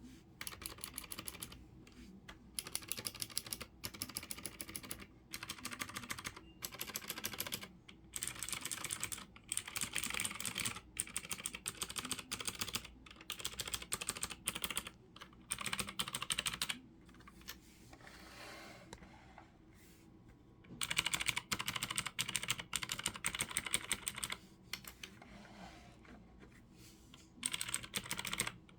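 Cherry G80-3000 mechanical keyboard with clicky Cherry MX Blue switches being typed on, in quick runs of sharp key clicks. The runs are broken by short pauses, with a longer lull a little past the middle.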